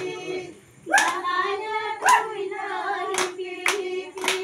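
A group of women singing together, with hand claps keeping the beat. The singing breaks off briefly and comes back in about a second in, and the claps come about twice a second through the second half.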